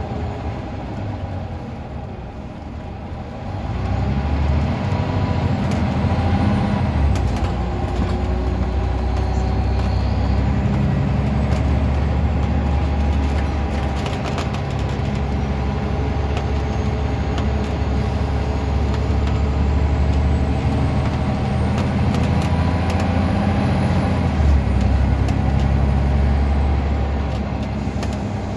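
Scania N94UD double-decker bus's five-cylinder diesel engine heard from the upper deck, quieter for the first few seconds and then rising sharply as the bus pulls hard, with brief dips in the engine note. Scattered clicks and rattles come through the middle of the stretch.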